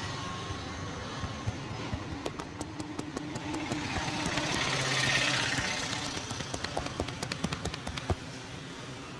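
A run of quick, irregular sharp taps or slaps, thickest in the middle seconds, over steady street traffic noise that swells briefly in the middle.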